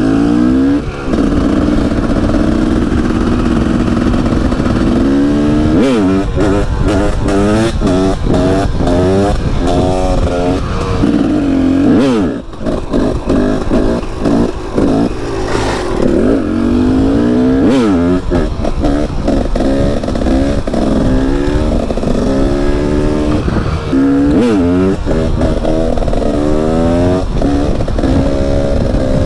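KTM 300 EXC's single-cylinder two-stroke engine through an FMF Shorty silencer, run hard. It holds a fairly steady pitch for about five seconds, then its pitch climbs and drops sharply over and over, one rev after another.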